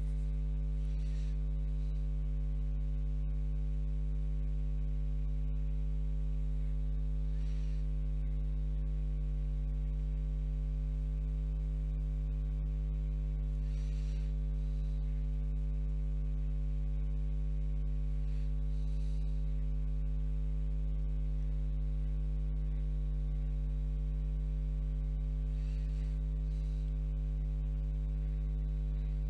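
Steady low electrical mains hum. About five faint, brief swishes of a calligraphy brush stroking across paper are spread through it.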